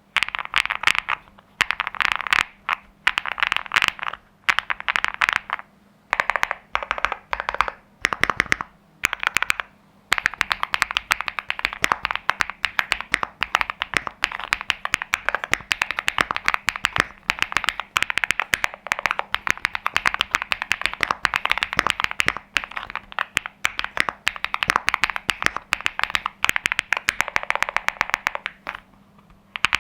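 Mechanical keyboard typing: a WOB Crush 80 PRO Reboot with an FR4 plate, linear Kailh Cocoa switches and PBT doubleshot keycaps, keys clacking in fast runs. Short bursts of typing with brief pauses give way, about ten seconds in, to continuous fast typing.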